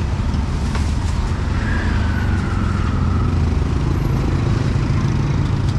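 Street traffic with motorbike engines running close by, a steady low rumble.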